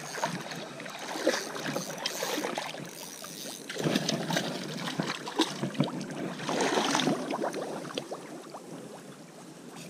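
Water splashing and sloshing at a canoe's side as a hooked northern pike is brought in, with scattered small clicks and knocks. The splashing swells twice, about 4 s in and again around 7 s.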